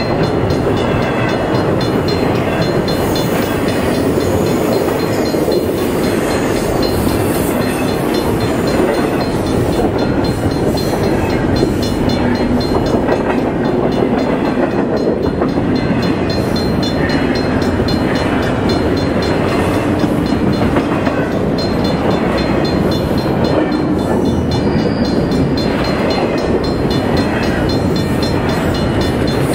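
Double-stack intermodal freight train's cars rolling past close by at speed: a loud, steady rumble and rattle of steel wheels on the rails, with no break.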